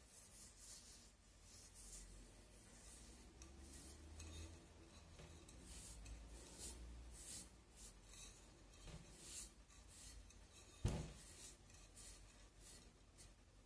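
Faint, irregular rubbing strokes against a ceramic vase as a finish is worked over its surface, with one dull knock about eleven seconds in.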